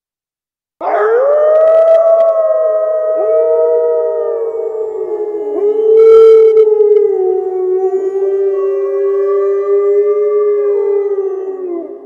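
Werewolf sound effect: several long, overlapping wolf-like howls at different pitches, starting about a second in, with new howls joining one after another. It is loudest near the middle and begins to fade at the end.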